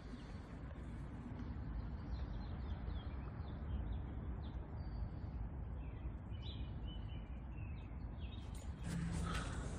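Steady low background noise of an open-air yard, with faint bird chirps scattered through the middle.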